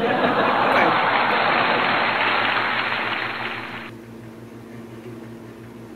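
A loud, even hiss that stops abruptly about four seconds in, over a steady low electrical hum.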